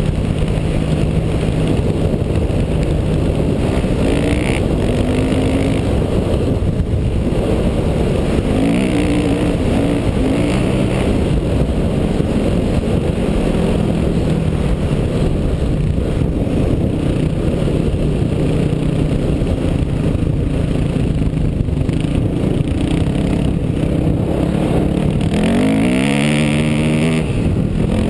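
1999 Yamaha WR400F single-cylinder four-stroke dirt bike engine running under load while riding through sand, mixed with heavy wind noise. Near the end the engine revs up in a sharp rising climb.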